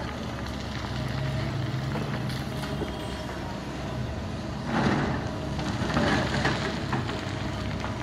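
Heavy diesel engine of a dump truck running steadily at idle, with a louder rush of noise a little before the midpoint and again about a second later.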